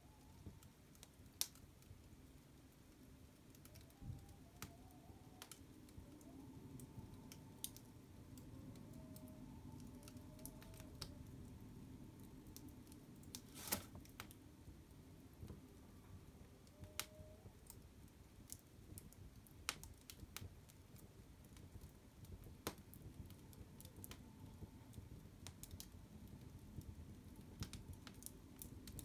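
Fire crackling: scattered sharp pops and snaps, the loudest about a second in and again near the middle, over a low steady rumble of the flames, with a faint wavering whistle now and then.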